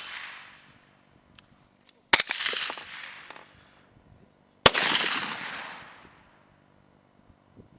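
Two rifle shots from an AR-15, about two and a half seconds apart, each report echoing away over a second or so. The tail of a shot fired just before dies out at the start.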